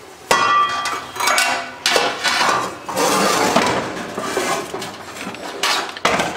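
Steel cooking pot being gripped with a cloth and shifted on a gas stove's metal grate: a ringing clank about a third of a second in, then metal scraping and knocking against metal, with another sharp knock near the end.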